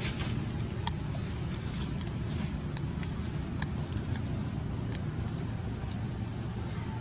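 A steady low rumble of outdoor background noise under a thin, steady high-pitched whine, with scattered light clicks and rustles of dry leaves and twigs as small monkeys move through leaf litter.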